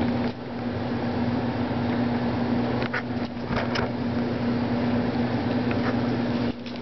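Steady electrical machine hum, like a motor or fan running, with a few brief clicks and rustles about three seconds in.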